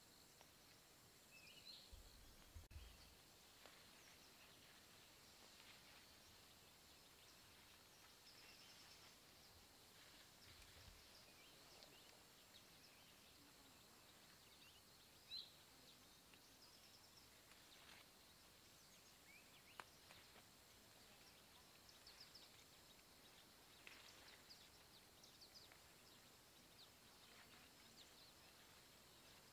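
Near silence: faint outdoor ambience with scattered faint high chirps, a few soft low thumps about two to three seconds in, and a couple of brief ticks.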